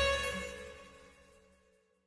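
Outro music ending on a held chord that fades out to silence over about a second and a half.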